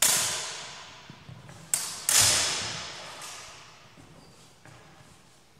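Steel feders (longsword training blades) clashing three times, each strike ringing out and fading over a second or more, the loudest about two seconds in. A few faint knocks come in between.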